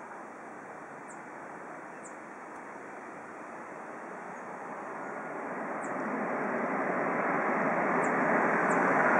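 Boeing 747-400 jet engines on the landing roll: a steady rushing jet noise that swells from about halfway through as the airliner rolls nearer.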